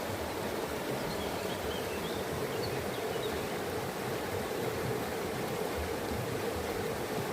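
Steady rush of running water, with a few faint bird chirps between about one and three and a half seconds in.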